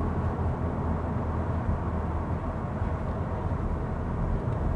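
Steady low rumble of road, tyre and engine noise inside the cabin of a Skoda Kamiq 1.5 TSI cruising at about 75 km/h on a motorway.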